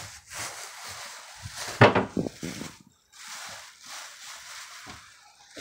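Thin plastic shopping bags crinkling and rustling as a toddler shuffles in and out of a wooden kitchen cabinet, with a louder burst about two seconds in.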